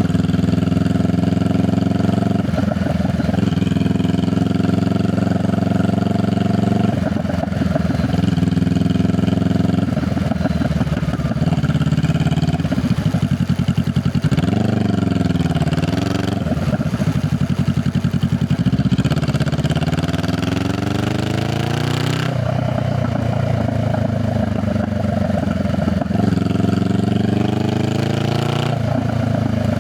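Honda Rebel 500's parallel-twin engine and exhaust under way, holding a steady note, then revving up through the gears twice in the latter half, its pitch climbing for a few seconds and dropping sharply at each upshift.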